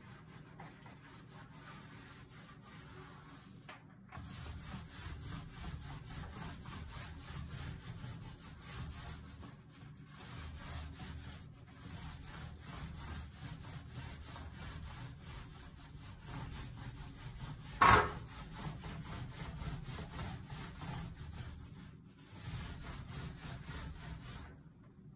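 Paint roller being worked back and forth over glazed wall tile, a steady repeated rubbing that starts about four seconds in and stops briefly now and then. About eighteen seconds in there is a single sharp knock, the loudest sound.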